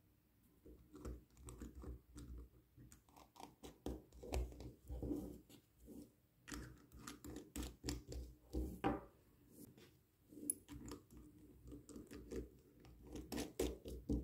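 Close-up handling sounds of calligraphy tools: a glass dip pen is swirled and tapped in a glass of rinse water, then small liquid-watercolour bottles are picked up and their caps handled. Together they make an irregular run of clicks, taps and scrapes with soft knocks.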